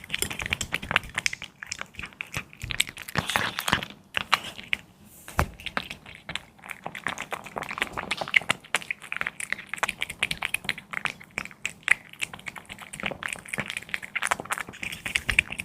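A cat chewing and crunching raw meat: a fast, irregular run of crisp clicks and cracks from its bites.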